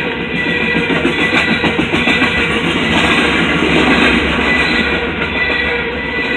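CSX coal train rolling past, its cars rumbling steadily over the rails, with music playing over the train noise.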